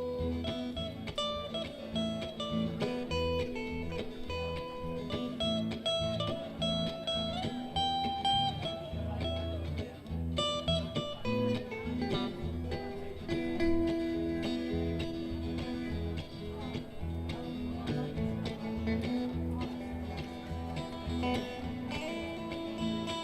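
A live band playing an instrumental break in a blues number: lead guitar playing held and bending notes over bass and a steady drum beat.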